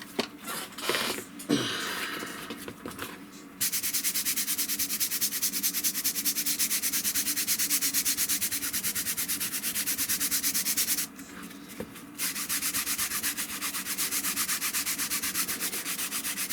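Brush scrubbing fabric speaker grill cloth wet with household cleaner, in fast, even back-and-forth strokes. A few quieter rubs and handling sounds come first, and the scrubbing stops briefly about eleven seconds in before going on.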